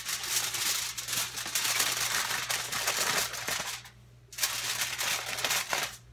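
Aluminium foil crinkling and crackling as hands fold up its sides, in two spells with a brief pause a little past halfway.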